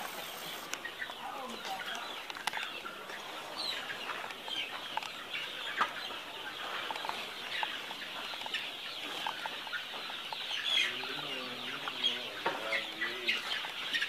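A flock of domestic chickens clucking and chattering continuously, with a few louder, drawn-out calls near the end.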